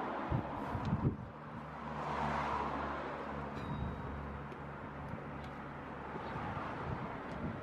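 Two sharp knocks, then a vehicle engine's low, steady hum for about five seconds, fading out near the end, over wind and outdoor noise.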